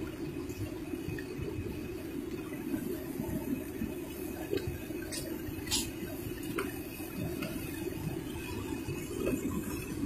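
Steady rushing of the Ganga in monsoon flood, a swollen, muddy river churning past with debris. Two short clicks come about five to six seconds in.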